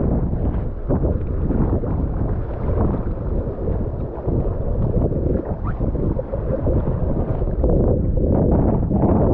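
Strong gusting wind buffeting the microphone in a continuous low rumble, with water splashing and sloshing around a kayak.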